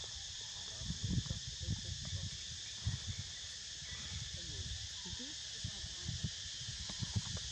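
Steady high-pitched insect chorus buzzing, with scattered low thumps.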